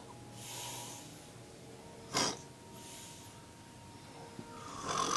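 A man snoring in his sleep: airy, hissing breaths broken by a sharp snort about two seconds in and another loud snort near the end.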